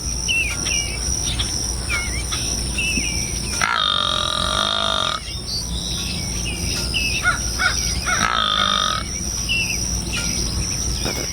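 Outdoor animal ambience: birds chirping over a steady high insect drone, with two long, even calls about four seconds in and again about eight seconds in.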